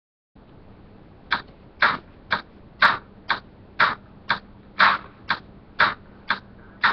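A steady beat of sharp percussive hits, about two a second, alternately stronger and weaker, made by a child keeping time by hand or mouth, with a faint hum and hiss from the webcam beneath.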